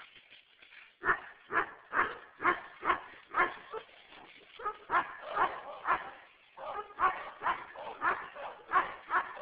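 A large dog barking repeatedly in rough play, sharp barks about two a second, starting about a second in, with a brief pause near the middle.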